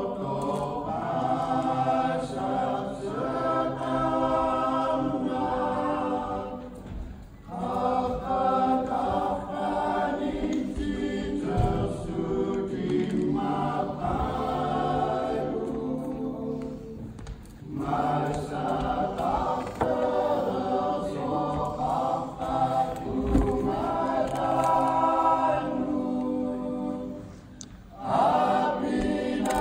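Mixed choir of men and women singing unaccompanied, in long phrases with brief breaks about 7, 17 and 27 seconds in.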